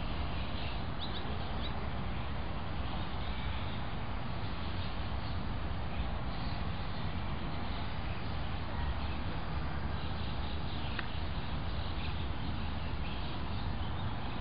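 Steady outdoor background noise with a low rumble, and faint bird chirps now and then.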